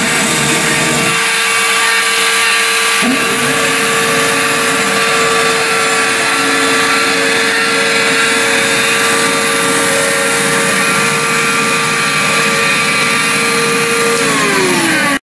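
Homemade CNC machine's spindle motor running steadily with a high whine. Near the end the pitch falls as it slows, then the sound cuts off abruptly.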